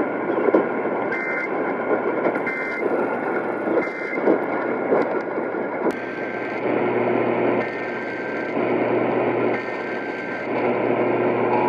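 Emergency Alert System broadcast received on a radio through heavy static and hum: three short bursts of the alert's digital header tones about a second and a half apart, then steady tones alternating in pitch in roughly one-second blocks.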